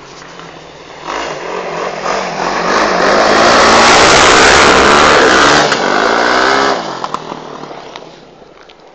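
Rally car sliding sideways across a loose gravel clearing, its engine revving hard. It grows louder from about a second in and is loudest for a few seconds as it passes close by. Its pitch then drops and it fades away.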